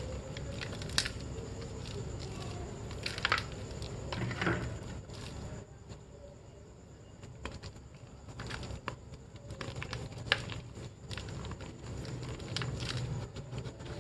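Dry gym chalk blocks being snapped and crushed by hand into a small plastic basket: irregular crunches and sharp cracks as the chalk crumbles, with a quieter spell in the middle.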